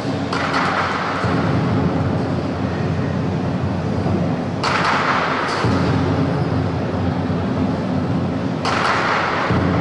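Chinese dragon-dance percussion: a drum beaten in a fast, dense roll, with cymbals crashing three times about four seconds apart.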